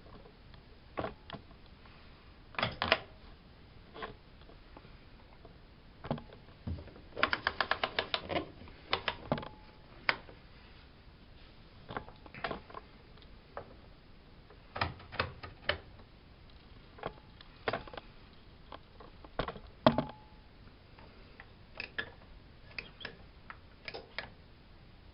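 Bosch WFK 2431 washing machine being handled: scattered single mechanical clicks and knocks, with a quick run of ratchet-like clicks about seven seconds in.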